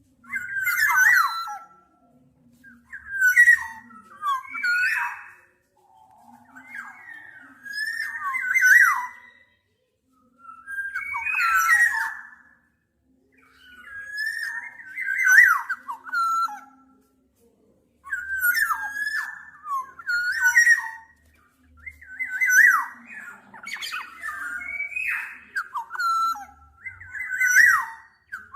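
Black-naped oriole giving short, fluty whistled phrases with slurred, falling notes, repeated about every two seconds.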